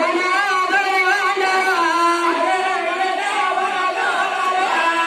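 A singer's voice drawing out a wavering, held melody in the style of a Telugu village folk-drama song.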